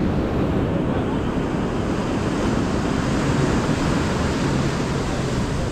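Surf washing onto the beach, with wind buffeting the microphone.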